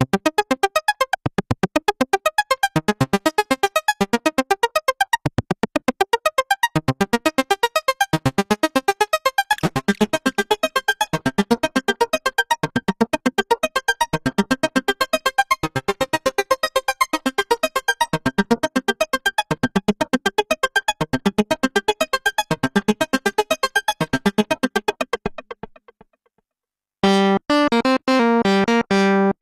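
Sequential Pro 3 analog synthesizer playing a fast, even stream of short repeating notes, several a second. The notes stop about 25 seconds in, and after a brief gap a new, lower-pitched pattern with wider-spaced notes starts near the end.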